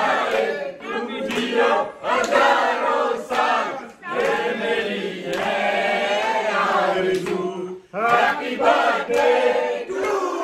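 A group of people singing and chanting together with cheers, holding one long note through the middle before starting up again.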